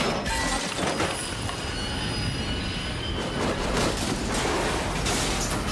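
Freight train running with its steel wheels squealing on the rails in several high, steady tones over a loud rumble. About three and a half seconds in the squeal stops and gives way to a rough, noisy clatter as the tank cars derail.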